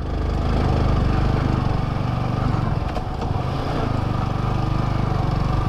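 Yamaha R15 V3's single-cylinder engine running at steady, even revs as the motorcycle is ridden along a rough off-road track.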